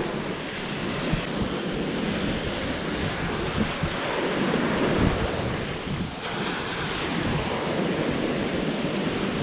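Shallow sea surf washing in and breaking into foam, with wind buffeting the microphone.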